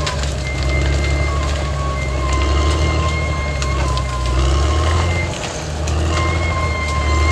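Caterpillar D6R XL bulldozer's diesel engine running under load, with scattered clanks from the tracks and the engine easing briefly about five seconds in. A high steady tone sounds on and off over it.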